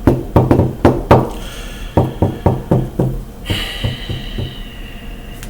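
A quick, irregular run of sharp knocks, about fifteen in three and a half seconds, followed by a steady high-pitched hiss for the last two seconds.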